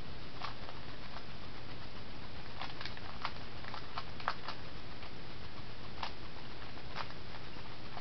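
Plastic Rubik's Cube layers being twisted fast by hand, giving irregular clicks and clacks, with a quick flurry of them a few seconds in, over a steady hiss.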